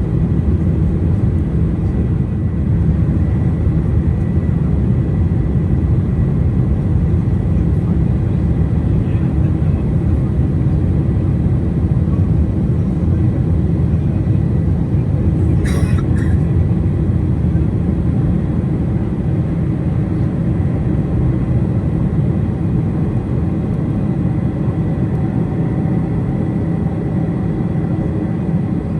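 Steady low rumble of a Boeing 747-400's engines and airflow heard inside the passenger cabin, with a faint steady whine above it. A brief double click about halfway through.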